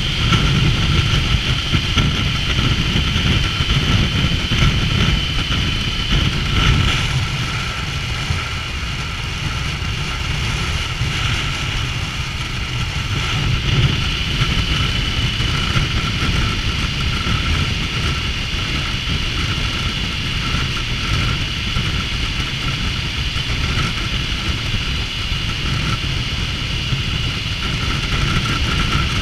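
Triumph Tiger 900's three-cylinder engine running steadily while riding, under continuous low wind rumble on the action camera's microphone, with a steady high whine throughout.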